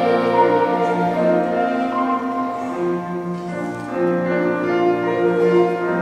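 Slow live choral music: a children's choir with cello accompaniment, long held chords moving slowly from one to the next.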